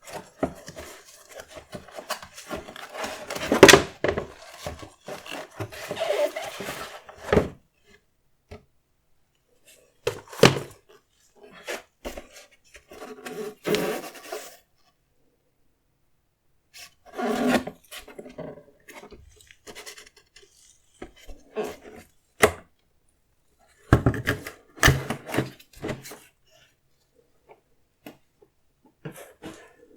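Close-up handling of a sneaker unboxing: rubbing, scraping and rustling of the box and packaging, with light knocks. The sounds come in bursts of a few seconds, separated by silent pauses, the loudest knock about four seconds in.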